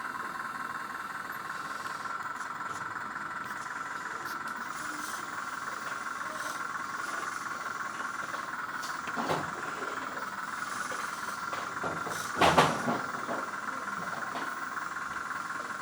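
Hydraulic pump of a 1/14-scale RC excavator running with a steady high-pitched whine. It swells briefly twice, most loudly about three-quarters of the way through, as the hydraulics take load.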